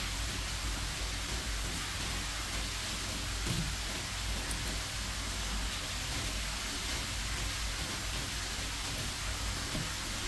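Steady hiss with a low hum underneath, and a faint knock about three and a half seconds in.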